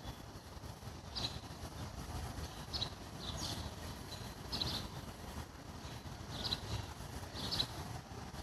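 A small bird chirping, short high chirps repeated about once a second, some in quick pairs, over a steady low rumble.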